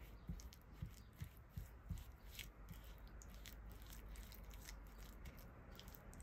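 Spatula mashing and stirring softened butter and brown sugar in a glass bowl: quiet, soft scraping with small clicks against the glass, and a few low knocks in the first two seconds.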